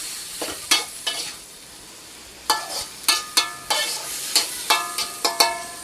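Banana stem and meatballs sizzling in a frying pan while a utensil scrapes and knocks against the pan in stirring. From about two and a half seconds in the strikes come quicker and ring with a metallic tone.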